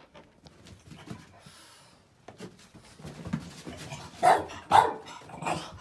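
French bulldog barking at birthday balloons: faint shuffling at first, then three sharp barks in the last second and a half.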